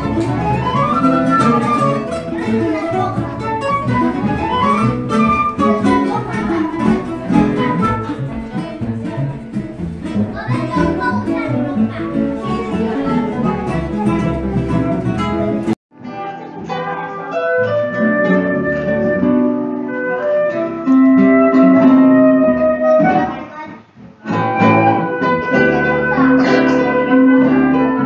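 Acoustic ensemble music: flute, acoustic guitars and double bass playing together. The music cuts off suddenly about 16 seconds in and resumes with a different passage of plucked guitar under steady held notes, dipping briefly near 24 seconds.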